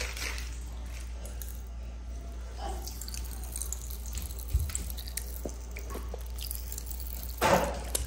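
Popping candy crackling in a child's mouth: scattered small, sharp pops, with one louder short mouth noise near the end.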